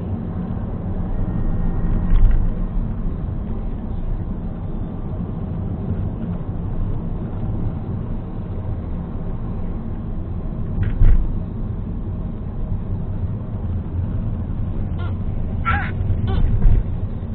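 Car driving along a road, heard from inside the cabin: a steady low rumble of engine and tyre noise, with a thump about eleven seconds in and a few brief higher-pitched sounds near the end.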